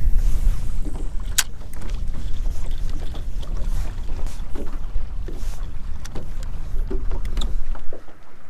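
Low rumble of wind buffeting and jacket fabric rubbing against the microphone, which drops away near the end, with a few sharp clicks and ticks as a spinning rod and reel are handled.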